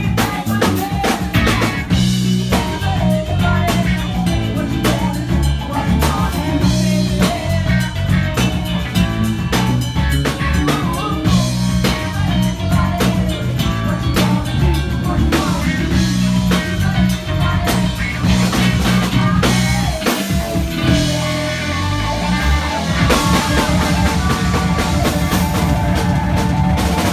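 Live rock band playing at full volume: drum kit with driving hits, electric guitars and bass guitar. The bass and kick drop out briefly about twenty seconds in, then the full band comes back in.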